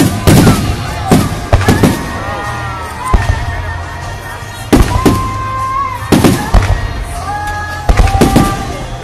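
Aerial firework shells bursting in about ten sharp bangs at irregular intervals, some in quick pairs. Music plays steadily underneath.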